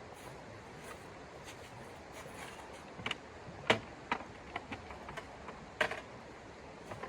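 A run of irregular sharp clicks and knocks over a steady hiss, the two loudest about three and a half and six seconds in.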